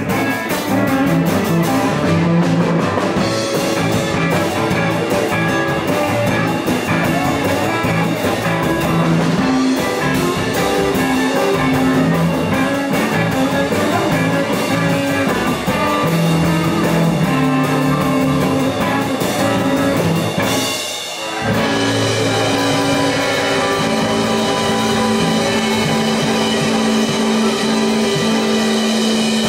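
Live electric blues band playing: electric guitar, drum kit and bass, with harmonica. The band drops out briefly about two-thirds of the way through, then comes back in and plays on to the end of the song.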